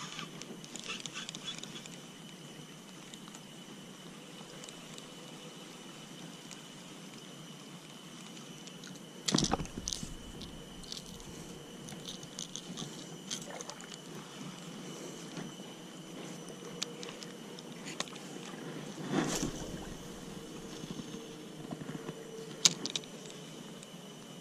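Quiet outdoor ambience with a steady faint high tone, broken by small clicks and knocks of a spinning rod and reel being handled, with two heavier short bumps about nine and nineteen seconds in.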